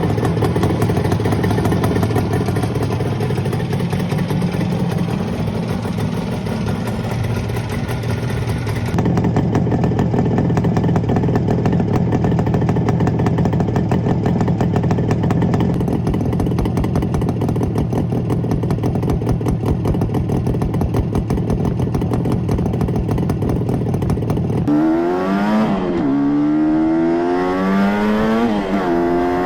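1967 Kawasaki A1SS Samurai two-stroke twin motorcycle engine running at a steady speed while riding. Near the end the engine pitch rises and falls repeatedly, revving up through the gears.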